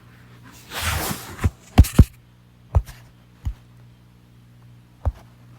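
Vornado Evap40 evaporative humidifier's fan running with a steady low hum, under a brief rustle and a string of sharp knocks and thumps. The loudest knocks come about two seconds in, and one more comes near the end.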